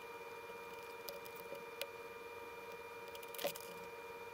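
A few faint clicks and one louder short crackle about three and a half seconds in, from soldering a wire onto the pads of a small circuit board, over a steady hum.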